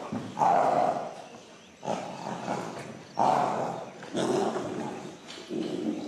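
Animals calling: a series of about five rough, noisy calls, each lasting about a second.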